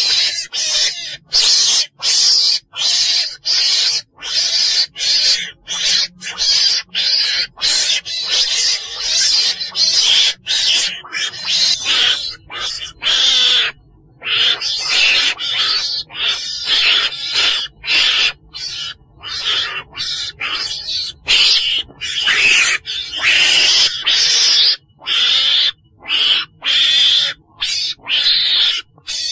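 Recorded calls of a chồn đèn (weasel), a high, rasping call repeated about twice a second with brief gaps, used as a lure sound for trapping weasels.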